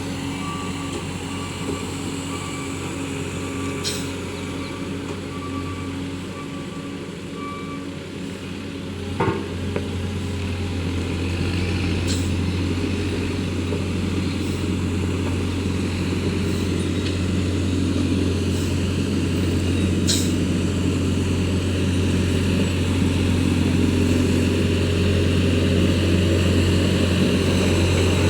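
Diesel engine of a heavy road-construction machine running steadily and slowly getting louder as it nears. Over the first eight seconds or so a reversing alarm beeps, about once a second, and a few sharp clicks and knocks are heard.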